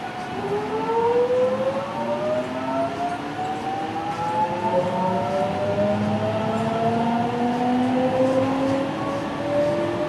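JR West 207 series electric train's inverter and traction motors whining as the train pulls away and gains speed: several tones rising steadily in pitch together, over the rumble of the carriage, heard from inside the car.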